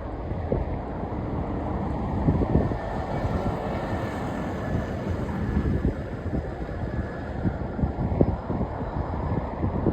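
Jet airliner engines running: a steady low rumble with a faint whine, and wind buffeting the microphone.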